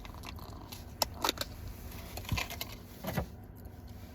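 Light clicks and clatters of takeout food containers and plastic sauce cups being handled, about five in all, the loudest a little past one second and around three seconds in.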